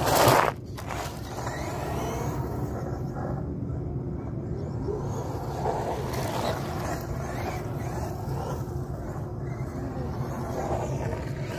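Tamiya Wild One electric RC buggy rushing past close by, a loud burst of motor and tyre noise about half a second long at the start, then a steady low rumble as it runs on the rubberised track farther away.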